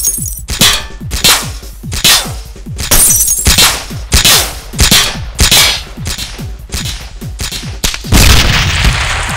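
Gunshots fired about twice a second, each a sharp crack with a falling ring, as bullets hit a car. About eight seconds in a loud car explosion goes off and keeps rumbling.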